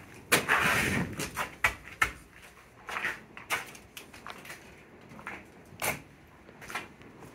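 Irregular knocks and clacks, like footsteps and bumps on a warship's steel deck and fittings, with a short rushing noise about half a second in and softer scattered knocks after.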